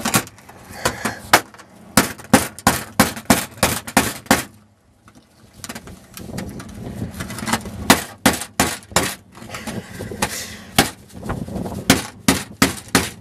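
Claw hammer striking a live oyster's shell again and again, trying to crack it open: sharp hits several a second, a short pause about four and a half seconds in, then more hits.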